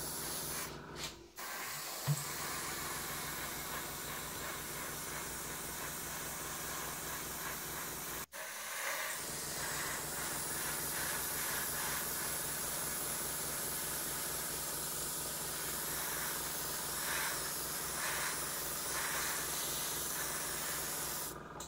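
Airbrush spraying green paint, a steady hiss of air with the even pulsing hum of the airbrush compressor beneath; the hiss breaks off briefly twice.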